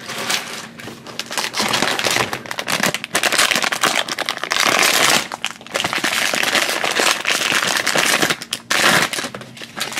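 Foil blind bag crinkling and crackling as it is handled in the hands, in long stretches with a few short pauses.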